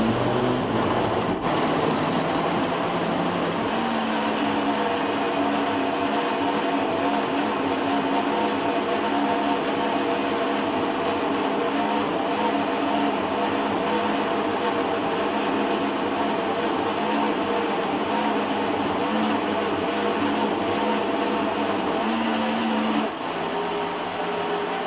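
Electric blender running steadily, grinding fruit for juice; its motor note drops a little about 23 seconds in.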